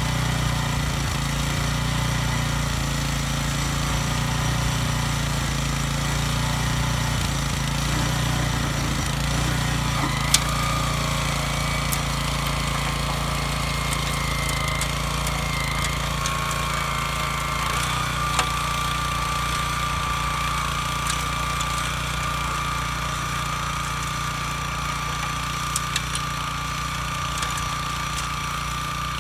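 Kubota TR90 walk-behind rotary tiller's 6.8-horsepower engine running steadily under load as its tines churn through the soil, with a few sharp clicks along the way.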